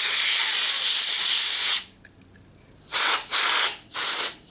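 Can of compressed air spraying: one long blast that cuts off sharply under two seconds in, then a few short bursts.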